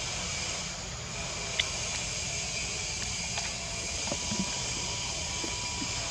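Steady outdoor forest background hiss with a low rumble underneath, broken by one sharp click about a second and a half in and a few faint ticks around four seconds in.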